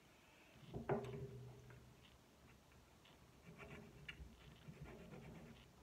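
Faint clicks and light taps from handling a clarinet joint and its metal keys, with one sharper knock about a second in.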